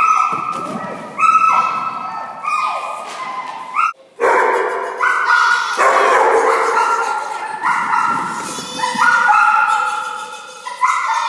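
A dog barking and yipping excitedly, about ten loud calls, each ringing on in a strong echo as it fades.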